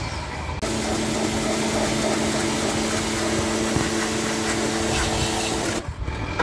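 A motor-driven cleaning machine running steadily on a car's dirty air-conditioning unit: a hiss over a low, even hum. The hum starts about half a second in and stops shortly before the end.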